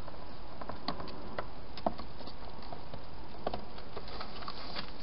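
Wild hedgehog feeding at bowls inside a clear plastic feeding box: small irregular clicks and taps, a few close together near the end, over a steady hiss.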